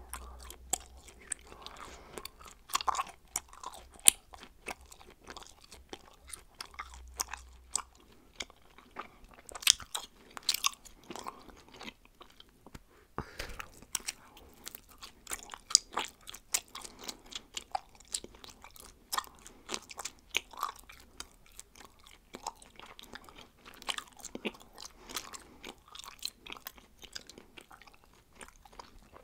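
A person chewing bubblegum: irregular, sharp mouth clicks and smacks, several a second.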